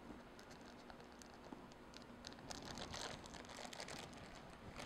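Parchment paper being peeled off the bottom of a baked cake layer: faint, soft crinkling with scattered small ticks, busier in the second half.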